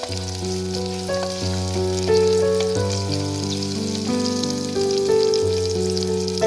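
Background music of held notes stepping in a slow melody, laid over the crackle of food sizzling as it fries.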